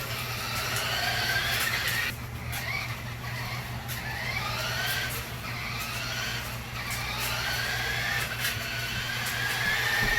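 Electric drive motor and gears of a 1:16 four-wheel-drive toy RC car whining, rising in pitch again and again as it speeds up, with scattered clicks.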